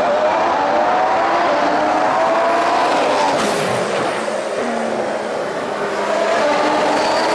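2014 Formula One 1.6-litre turbocharged V6 engine accelerating hard, its pitch climbing for about three seconds, dropping sharply, then climbing again and dropping once more near the end.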